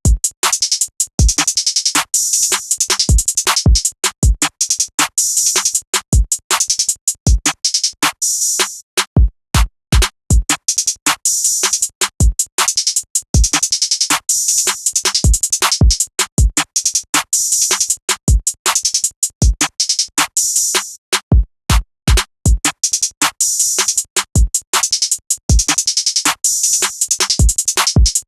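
Trap drum beat playing from a Maschine MK2: rapid hi-hats ticking over deep 808 bass hits. The hi-hats drop out briefly twice, about a third of the way in and again about three quarters through.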